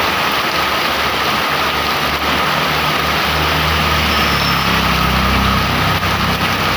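Heavy rain falling steadily, with a motor vehicle's engine running close by. The engine's low hum comes in about a second in and is loudest past the middle.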